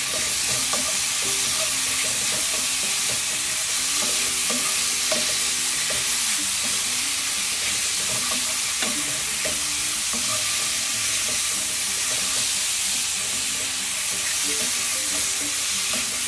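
Sliced white mushrooms sizzling steadily in butter and olive oil in a pan on high heat, stirred and turned with a utensil throughout.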